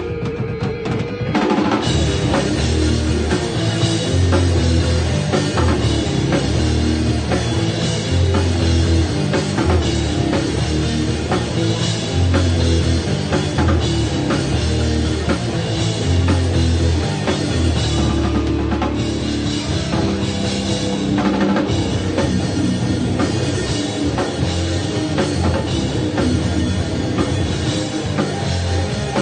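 A rock band playing live, loud and dense, with a drum kit driving the rhythm. A held note rings alone at first, and the full band comes in about a second and a half in.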